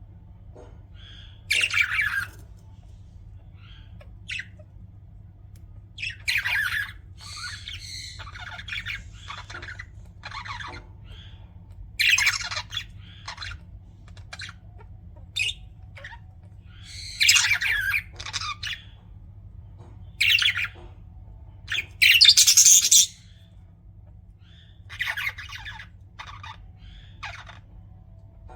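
Budgerigars chirping in irregular bursts of high-pitched warbling calls a second or a few seconds apart, the loudest burst about four-fifths of the way in.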